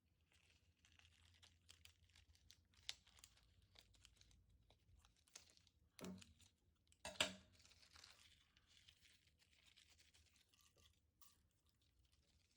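Faint, irregular crinkling and crackling handling sounds, with a few sharper clicks; the loudest two come about six and seven seconds in.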